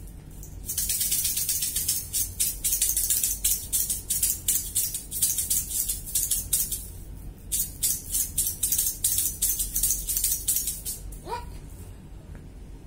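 Small hard candies rattling inside a container that is shaken fast and hard for about ten seconds, with a brief pause partway through. A short rising squeak comes near the end.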